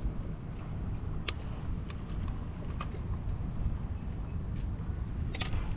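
Steady low wind rumble on the microphone, with a few light, sharp clicks and taps from handling, and a louder rustle and clack near the end.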